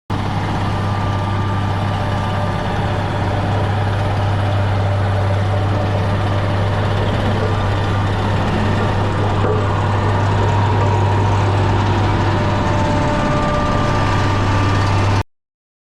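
Engine running steadily at an even speed, a constant low hum under a wide noisy wash; it stops abruptly near the end.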